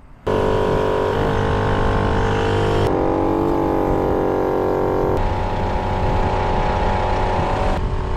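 Adventure Kings portable twin-cylinder air compressor starting and running steadily while it pumps up a 4x4's tyre through a hose on the valve. Its tone jumps abruptly a few times.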